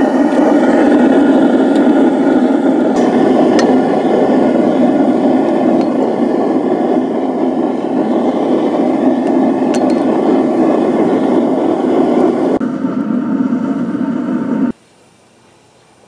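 Forced-air burner firing a small backyard metal-melting furnace, a loud steady rushing noise that stops abruptly near the end.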